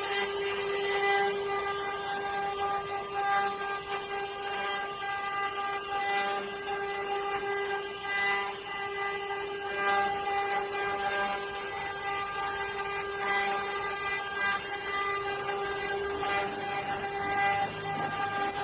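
CNC wood-carving router running: a steady high-pitched spindle whine with the hiss of the bits cutting wood.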